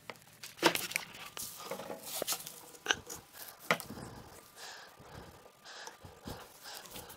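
Handling noise: scattered clicks, knocks and rustling as the camera is moved about, with a few soft breaths.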